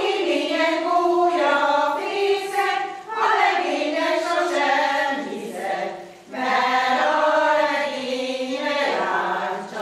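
Mixed choir of older women and men singing a Hungarian folk song unaccompanied. The singing starts at once and runs in phrases, with short breaks for breath about three and six seconds in.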